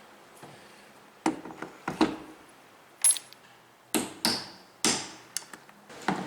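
Sharp metallic clanks and knocks, about eight in a few seconds, some ringing briefly: hand tools and wheel parts being worked on the axle of a portable RV waste tank during a wheel change.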